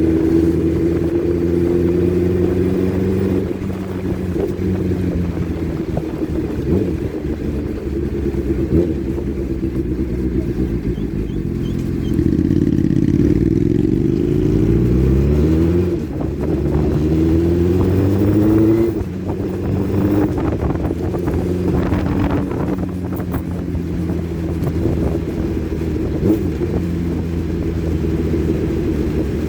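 Motorcycle engine running under way, with its pitch rising twice in the middle as it accelerates, and steady running either side.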